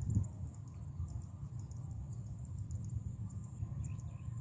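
Rural outdoor ambience: insects keep up a steady high-pitched drone, with short repeated chirps and a few bird calls, over a steady low rumble.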